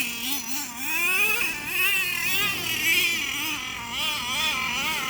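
RC car's motor whining as the car spins, its pitch rising and falling over and over.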